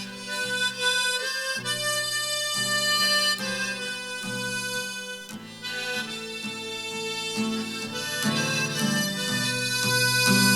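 Harmonica playing a melody over held chords, one note after another.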